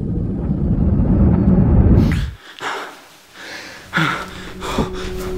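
A low rumbling drone swells and cuts off abruptly about two seconds in. About four seconds in a man gives a sudden sharp gasp and breathes hard as he wakes in the dark.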